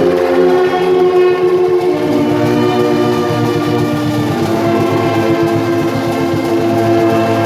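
Brass band of euphoniums and tubas playing loud, sustained chords that change every couple of seconds.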